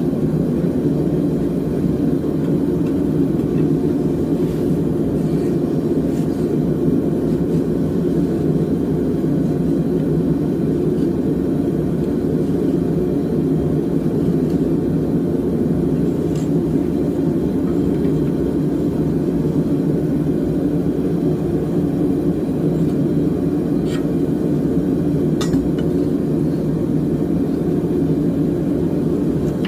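Small forge running steadily: a constant low rumble, with a few faint metallic ticks in the second half.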